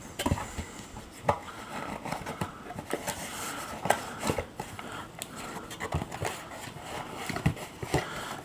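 Hard drive packaging being opened and handled by hand: irregular clicks, taps and rustles of the box and packing material.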